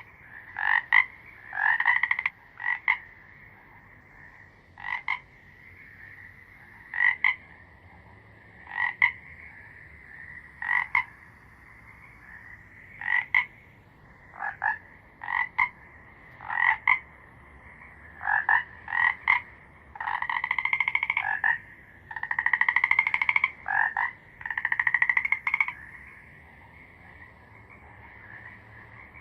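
Frog croaking: short pulsed croaks, one or two at a time, every second or two, with a few longer rattling croaks about two-thirds of the way through.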